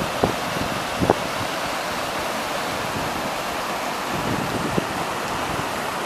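Mountain stream rushing and splashing over rocks in a small cascade, a steady hiss of white water, with a couple of brief faint bumps near the start.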